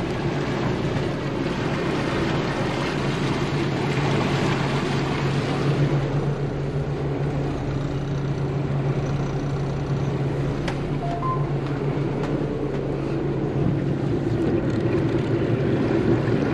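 The twin engines of a 1999 Carver 504 motor yacht run steadily at low speed, a constant low hum under an even wash of noise.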